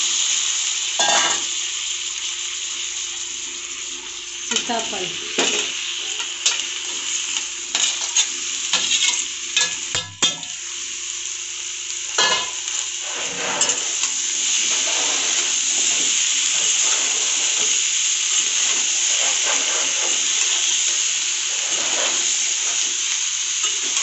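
Potato cubes and pumpkin pieces sizzling in hot oil in a metal kadhai, while a metal spatula scrapes and knocks against the pan as they are stirred. The scraping and clatter are busiest in the first half; later the sizzle runs on more evenly.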